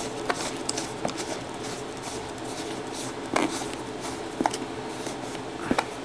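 Scattered sharp plastic clicks and knocks as the Hoover ONEPWR vacuum's handle parts are handled and fitted together, over a steady low hum.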